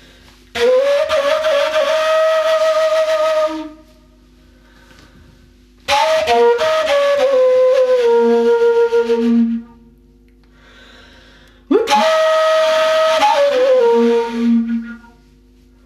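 Flute playing three slow phrases of about three seconds each, with pauses between. The notes slide into one another and each phrase ends on a falling glide.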